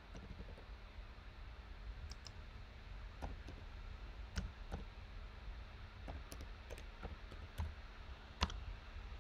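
Computer keyboard keystrokes: irregular, scattered clicks of typing, with one louder key press near the end.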